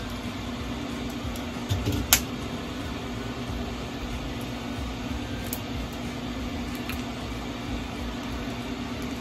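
Steady hum of a small electric fan, with a low tone held throughout. A single sharp click comes about two seconds in.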